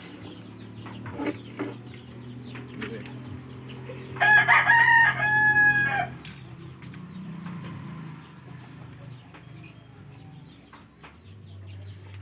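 A rooster crows once, about four seconds in, a loud call of roughly two seconds in two parts, amid scattered small knocks and clicks.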